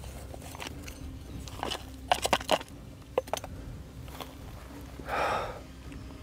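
Handling noise from uncovering a box among bark and debris. A quick cluster of sharp knocks and clicks comes about two seconds in, another click a second later, and a short scraping rustle about five seconds in.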